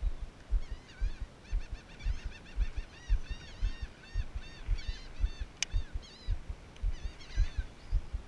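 A bird calling in a long series of short rising-and-falling notes, about three a second, over repeated low thumps that are louder than the calls.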